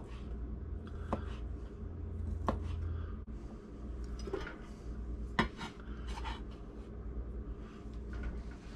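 Knife slicing a smoked sausage on a plastic cutting board, the blade knocking on the board in a few sharp clicks, with the slices then dropped into a stainless steel pot.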